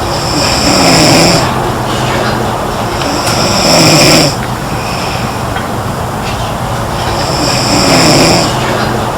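A girl snoring loudly in her sleep: three snores, each about a second long, a few seconds apart with quieter breathing between.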